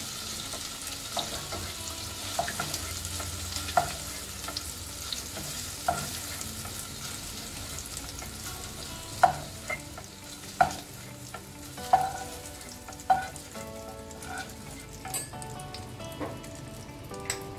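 Butter and oil sizzling in a nonstick kadai with the gas just turned off, the sizzle dying down as the pan cools. A spatula scrapes and taps the pan while lifting out paneer cubes, with several sharp clinks, the loudest in the second half.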